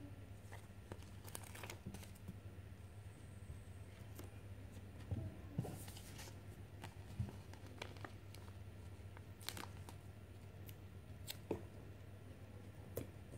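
Faint crinkling and crackling of a paper sticker sheet being handled and stickers peeled off and pressed onto plastic building blocks, a few light clicks spread over a steady low hum.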